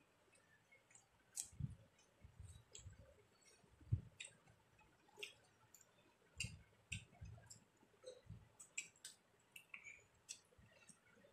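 Faint eating sounds of rice and fish being eaten by hand: scattered soft clicks and smacks from fingers working rice on a plate and from chewing, with a few soft low thumps.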